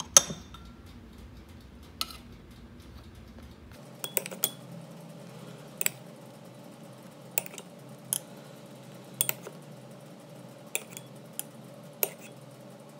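Metal spoon clinking and tapping against a stainless steel pot while coffee-and-tea dye is spooned over fabric. One sharp clink comes just after the start, then about a dozen lighter, irregular clicks and taps follow.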